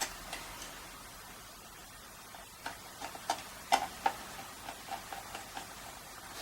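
A small screw being driven by hand into a car radio's case: a run of light, irregular clicks and ticks as the screwdriver turns and regrips, starting a couple of seconds in.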